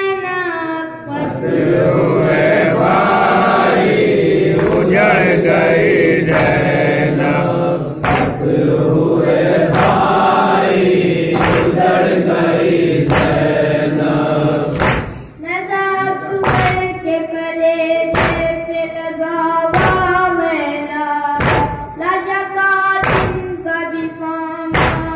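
Noha lament sung by a group of voices together for about the first 15 seconds, then by a boy's single voice through a microphone. Throughout, there are sharp thumps about every one and a half seconds from the mourners beating their chests in matam.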